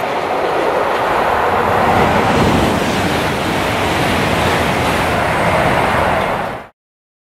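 Rear of a fast passenger train rushing past: coaches and a diesel locomotive on the tail running by on the rails with steady wheel and rail noise. The sound cuts off abruptly near the end.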